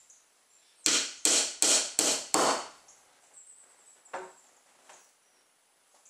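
A hammer driving nails into the finger-jointed wooden boards of a beehive honey super: five quick blows about three a second, then a lighter single tap about four seconds in.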